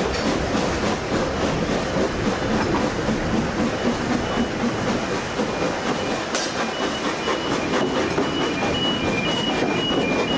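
Narrow-gauge steam train running along the line, heard from on board: a steady rumble with quick clicking of the wheels over the rail. A sharp click comes about six seconds in, and from about four seconds in a faint high squeal comes and goes in short pulses.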